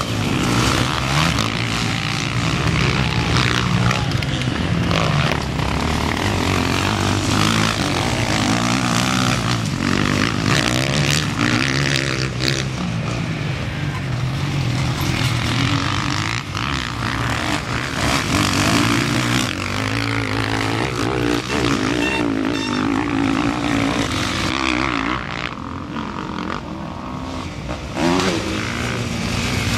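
Motocross bikes racing, their engines revving up and down through the gears as riders accelerate, jump and pass. The sound drops for a few seconds near the end, then a bike comes through loud again.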